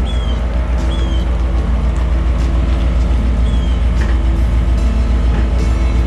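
A steady low engine rumble with a fast, even pulse, and a bird chirping three short falling notes over it.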